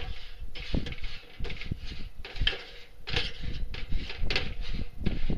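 The cooking grate of a kettle charcoal grill being scraped clean: a run of uneven scraping strokes, about two or three a second.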